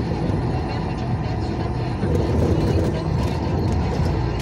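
Vehicle cabin noise while driving on a wet highway: a steady low engine drone under tyre and road noise, growing a little louder about two seconds in.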